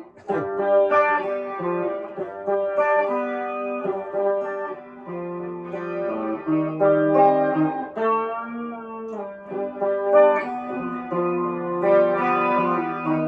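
Electric guitar played through an octave-up, overdrive, vibrato and tape-echo pedal chain, sounding a riff of sustained, overlapping notes that ring into one another.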